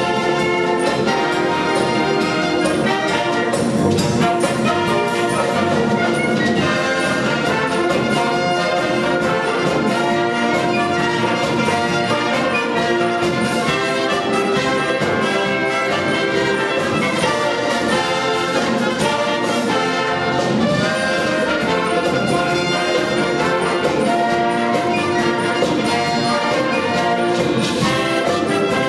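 A wind band of brass and woodwinds playing live, with trombones and trumpets prominent.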